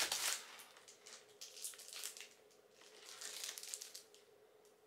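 Plastic wrapping crinkling and rustling in short scattered bursts as a wrapped storage container is handled and lifted out of a cardboard box, loudest at the very start.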